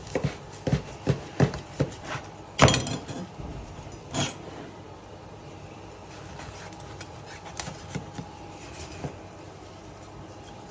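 A large kitchen knife cutting through dried salt cod and its bone on a wooden cutting board: a quick run of sharp knocks and crunches in the first few seconds, the loudest about two and a half seconds in. After that it goes quieter, with a few faint clicks later on.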